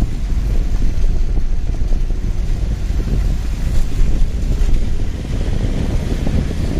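Steady low rumble of a vehicle driving along a road, with wind buffeting the microphone.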